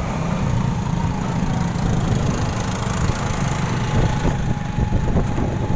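A motor engine running steadily at idle, a continuous low rumble with a faint steady high tone over it.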